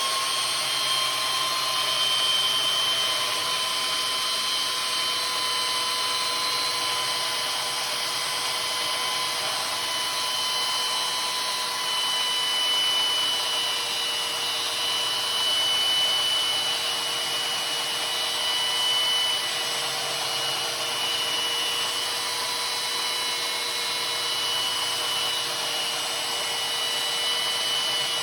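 Power tool running steadily through a maul-sharpening job: a constant motor whine over a grinding hiss, with no pauses.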